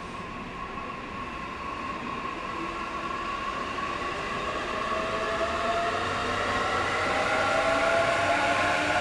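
JR East E531 series electric train accelerating away, its VVVF inverter traction motors whining in several tones that climb steadily in pitch and grow louder as it picks up speed.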